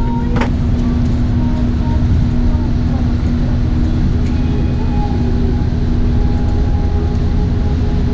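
Boat engine running steadily with a constant low hum, under a heavy rumble of wind on the microphone.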